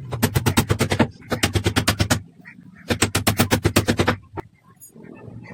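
A power tool rattling in three bursts of about a second each, made of rapid sharp strokes at about ten a second over a low hum, followed by a single click.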